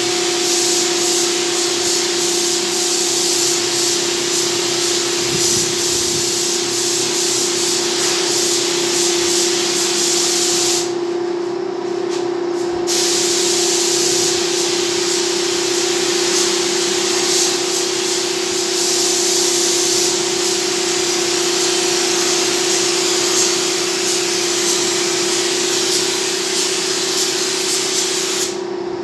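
Gravity-feed air spray gun spraying paint onto a CNC-cut MDF panel: a steady loud hiss of atomising air. The hiss stops for about two seconds a third of the way in and again just at the end as the trigger is let go, while a steady hum carries on underneath.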